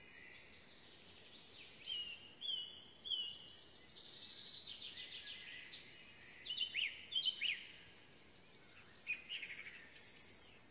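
Songbirds singing in woodland: a run of high chirps and quick trills, a few sharp falling notes in the middle, and a higher call near the end, over a faint steady hiss.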